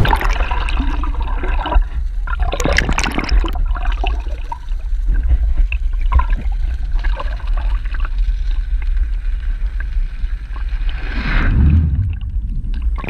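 Water heard through an underwater camera below the surface: a steady low rumble with gurgling and bubbling. Louder rushes of water come about three seconds in and again near the end, as bubbles and wash stream past the camera.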